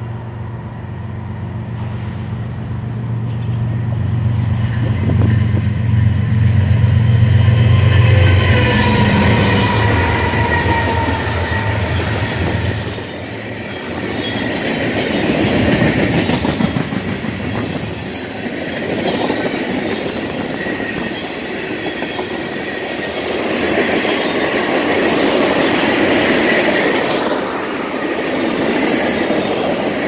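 Two BNSF GE Evolution-series diesel locomotives pulling a mixed freight train past. Their engines' deep drone builds, drops in pitch as they go by, and falls away about thirteen seconds in. After that the steel wheels of the loaded flatcars and tank cars roll and rattle past steadily.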